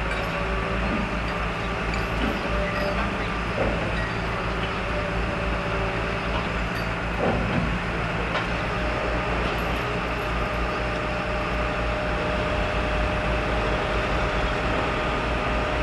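Kirow diesel-hydraulic rail crane running steadily while lifting and placing a track panel: a low engine drone with a steady whine that grows stronger about six seconds in. There are a few faint knocks among it.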